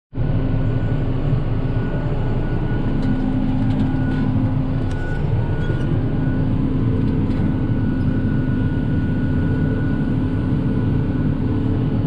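Tractor engine running steadily, heard from inside the cab, with a constant low drone and a steady whine over it.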